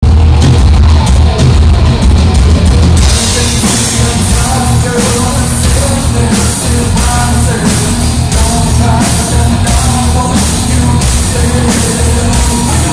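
Rock band playing live: electric guitar, bass guitar and drum kit. The drums and cymbals come in about three seconds in with a steady beat.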